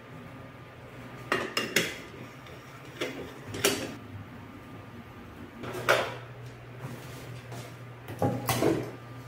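Sharp metal clinks and knocks from handling an aluminium moka pot: a spoon tapping the pot as ground coffee goes in, and the pot set on a gas stove's metal grate, over a low steady hum. Near the end a metal pot is set down on a wooden table with a couple of knocks.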